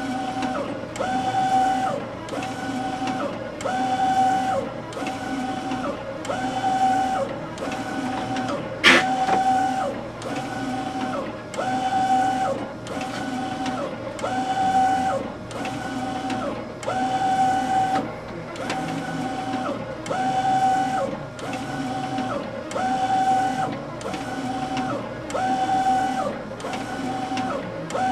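Direct-to-garment printer printing on two T-shirts, its print-head carriage sweeping back and forth about once a second with a motor whine that rises and falls on each pass. A single sharp click comes about nine seconds in.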